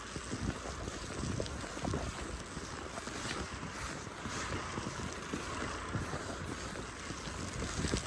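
Strong snowstorm wind blowing: a steady hiss over a low, uneven rumble where gusts buffet the microphone.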